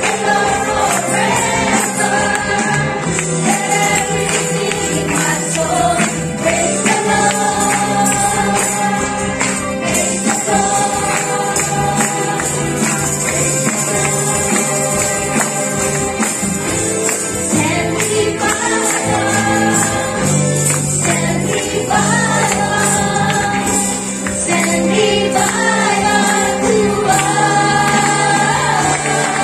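Gospel worship song with choir-style sung vocals over a band, tambourines jingling steadily along with the beat.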